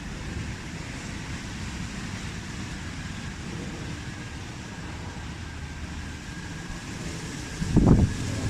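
Wind rumbling on the microphone over a steady urban background hum, with one strong gust buffeting the microphone near the end.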